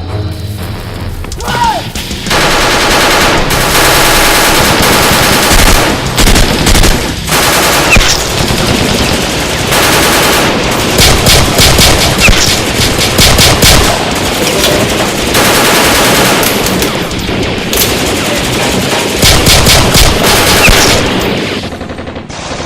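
Rapid automatic gunfire, burst after burst, starting about two seconds in and stopping near the end, over background music.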